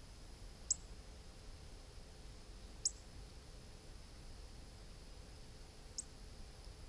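Three short, high chirps from a small bird, spaced a couple of seconds apart.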